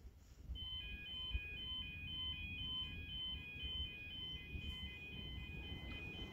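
The level crossing's YA30 yodalarms start to sound about half a second in: a warbling alarm that switches back and forth between two pitches several times a second. It signals the start of the crossing's closing sequence, warning that the barriers are about to come down for an approaching train.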